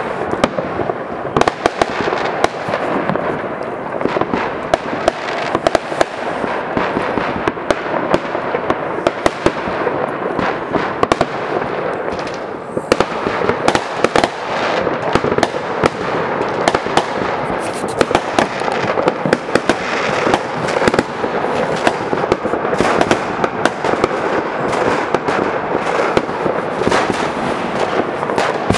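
Many fireworks going off at once: sharp bangs and crackles overlap in a dense, unbroken barrage.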